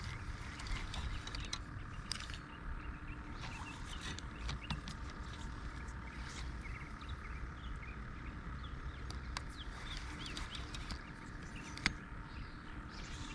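Birds chirping on and off over a steady low rumble, with one sharp click a little before the end.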